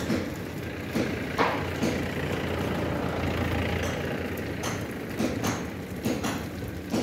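Liquid oxygen tanker truck's engine running steadily at idle during unloading, a constant low hum with a noisy haze over it. Irregular sharp clicks sound through it, about one a second.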